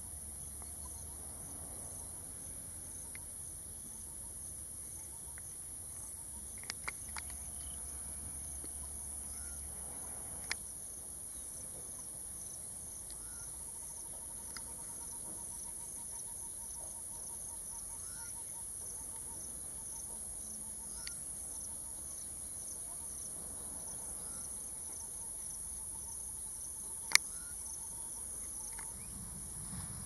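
Steady high-pitched insect chorus, with a second insect pulsing at an even rhythm beneath it. A few sharp clicks stand out, the loudest one near the end.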